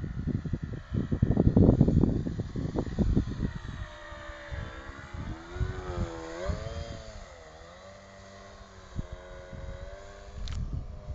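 Gusts of wind buffeting the microphone for the first few seconds, then the motor and propeller of a radio-controlled aerobatic model aeroplane droning, its pitch swooping up and down.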